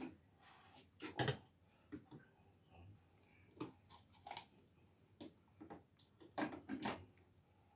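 Light clicks and knocks of a drip coffee maker's plastic parts and glass carafe being handled and fitted, a few at a time with gaps between, and a quick cluster of knocks near the end.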